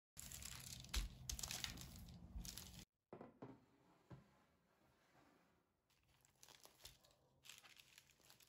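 Hands rolling a buttered sheet of dough into a rope on a tabletop: a rough rubbing and squishing rustle with a few soft knocks. After a quiet gap, a faint crackle near the end as a baked, layered çörek with a crisp crust is torn open by hand.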